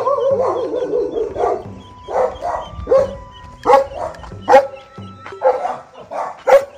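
A dog barking at the gate: one long, falling bark first, then about eight short, sharp barks, roughly one every half second.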